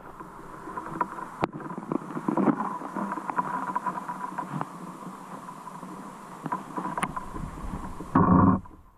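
Shallow stream water flowing and gurgling over gravel, heard underwater through an action camera's housing, with scattered small ticks and clicks. Near the end comes a short, much louder muffled burst.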